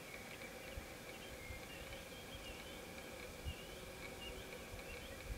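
Faint outdoor woodland ambience: short distant bird chirps over a steady high drone, with three soft low thumps.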